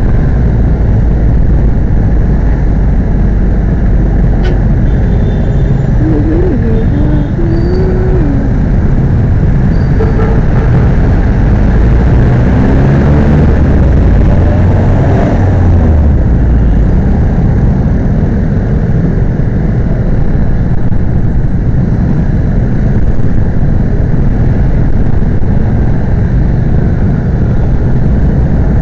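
A Suzuki Burgman 125 scooter's single-cylinder engine runs at low speed in heavy traffic, under steady wind rumble on the microphone. Nearby engines waver up and down in pitch a few seconds in and again about halfway through.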